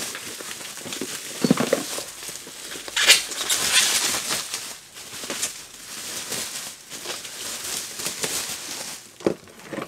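Plastic bubble wrap being pulled and unwrapped from around a cardboard box, rustling and crinkling irregularly, loudest about three to four seconds in.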